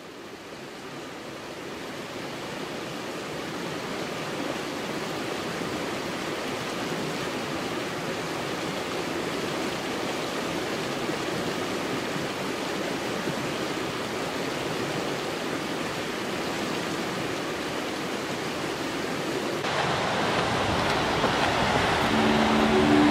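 Mountain creek rushing, a steady hiss of water that fades in at the start and grows louder and brighter about twenty seconds in. Near the end, sustained music tones come in over it.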